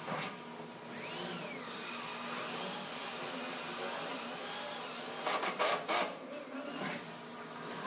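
Cordless drill-driver run in a few short, loud bursts a little past halfway, driving screws overhead to fix wooden ceiling slats to a metal frame, over a steady machine hum.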